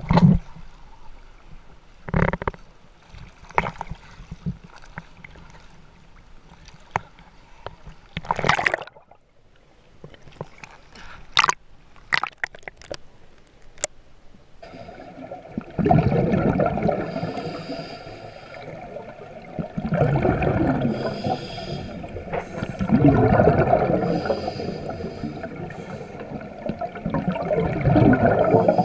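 Small waves splash and slap against the camera at the sea surface every second or two. About halfway through the camera goes under, and a continuous underwater bubbling and gurgling takes over, swelling every few seconds.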